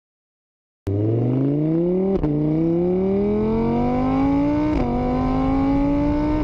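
Car engine accelerating, starting about a second in: its pitch climbs, drops sharply twice as it shifts up through the gears, then holds steady.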